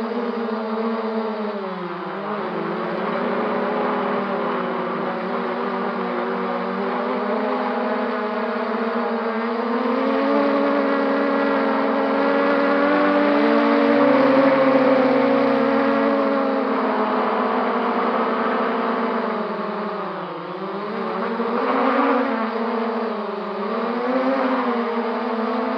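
MJX Bugs 3 brushless quadcopter's motors and propellers whining in flight. The pitch dips about two seconds in and near the end, then wavers up and down with throttle changes.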